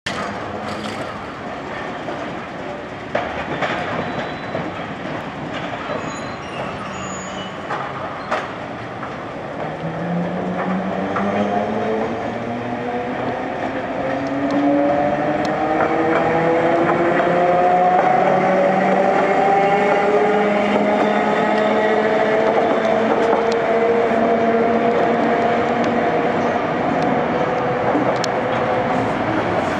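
Okayama Electric Tramway 7200-series tram pulling away and passing, over street noise: from about ten seconds in its motors give a whine that rises in pitch as it speeds up, then holds steady, the sound growing louder as it comes close.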